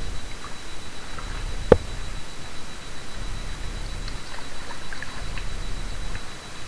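Light rain pattering in scattered faint ticks over a low rumble, with one sharp knock a little under two seconds in.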